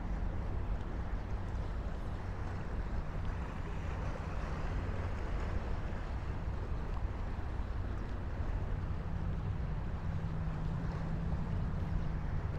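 Steady low rumble of passing road traffic with wind on the microphone. A low hum swells in about two-thirds of the way through and fades near the end.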